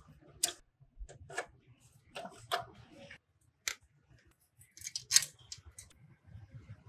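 A series of irregular sharp clicks and light knocks, like small hard objects or tools being handled, the loudest a cluster about five seconds in.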